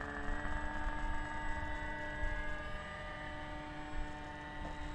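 Model airplane engine running steadily, throttled back for an emergency landing after it began to sputter, with a low wind rumble on the microphone.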